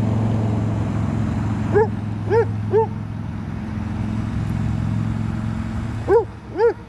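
Dog barking at a drone: three sharp barks about two seconds in and two more near the end, over a steady low hum.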